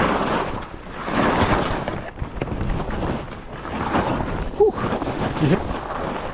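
Skis scraping and carving through chopped snow, a rushing hiss that swells and fades with each turn, with wind buffeting the microphone. A short vocal sound comes in about two-thirds of the way through.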